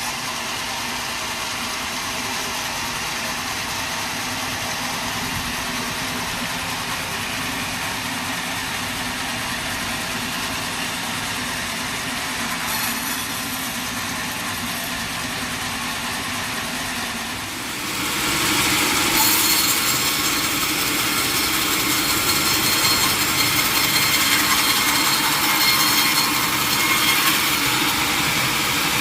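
Sawmill machinery running steadily while sawing a large mahogany log; about two-thirds of the way in the sound grows louder and harsher, with a hissing, higher edge that holds to the end.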